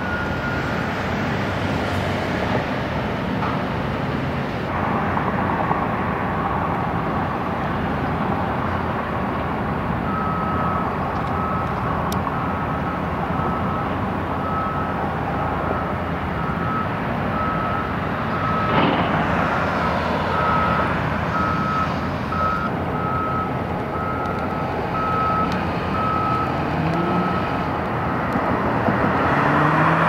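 Reversing alarm beeping steadily, about once a second, over constant traffic and engine noise.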